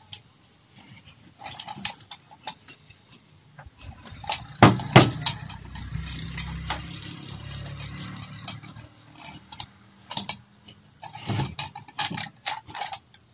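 Brass and metal parts of an antique kerosene table lamp clinking and knocking against each other as they are fitted together by hand, with the loudest knocks about five seconds in. A low steady hum sounds for a few seconds in the middle.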